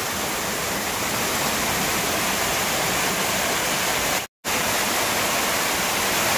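Storm runoff pouring down a flight of outdoor steps like a small waterfall: a steady rushing of water. It cuts out briefly to silence about four seconds in.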